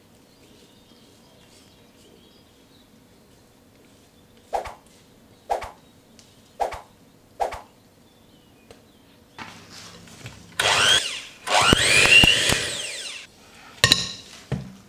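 Four short knocks about a second apart, then an electric hand mixer running loudly for about three seconds, its whir rising and falling in pitch as the beaters work yeast dough into creamed butter and sugar in a glass bowl. Two brief bursts of the mixer come near the end.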